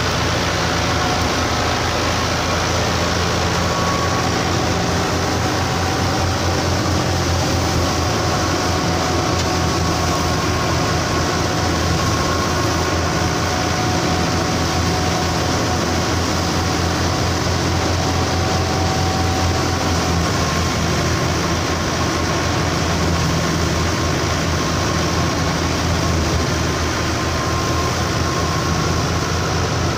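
Fiat 640 tractor's four-cylinder diesel engine running steadily under heavy load, driving a wheat thresher, mixed with the thresher's drum and blower whirring as wheat is fed in.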